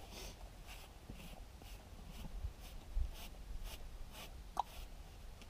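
A grooming brush stroking a horse's coat: a regular series of soft, scratchy swishes, about two a second, that stop near the end. One short sharp sound comes just before they stop.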